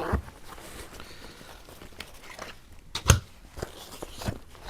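Hands rummaging through the contents of a small zipped pouch: faint rustling and crinkling with a few sharp clicks and knocks as items are handled, the loudest about three seconds in.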